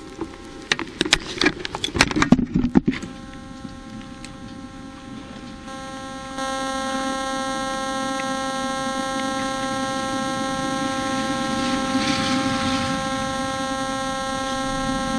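Knocks and clatter of a handheld action camera being handled and set down, then a steady electrical hum made of several fixed whining tones.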